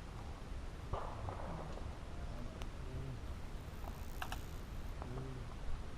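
A few faint, sharp clicks and knocks over a quiet background, with no loud shot.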